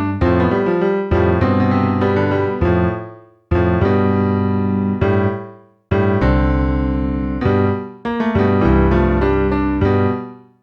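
Keyboard music, electric-piano-like chords in phrases that fade away, broken by short silences twice and again at the end.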